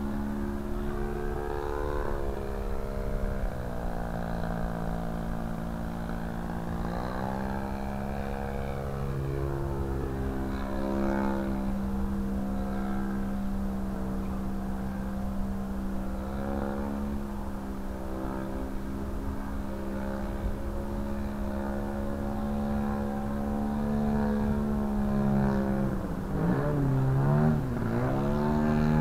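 Engine and propeller of a 40%-scale Sbach RC aerobatic plane in flight, running steadily with the pitch falling and rising several times as the throttle changes and it flies past. Near the end come quick swooping rises and drops in pitch.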